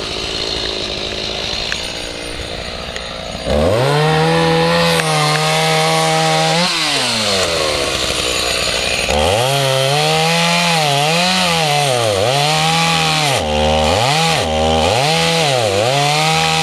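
Two-stroke chainsaw idling, then opened up to full throttle about three and a half seconds in. It eases back down for a moment and is revved up again. It then cuts into a fallen tree limb, its engine note dipping and recovering again and again as the chain bites into the wood.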